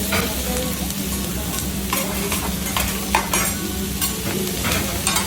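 Food sizzling on a hot teppanyaki griddle, a steady frying hiss, with several sharp clicks scattered through it.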